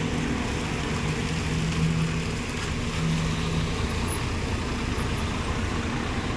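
Bus engine running in street traffic: a steady low engine hum that drops away a little over three and a half seconds in, over continuous traffic noise.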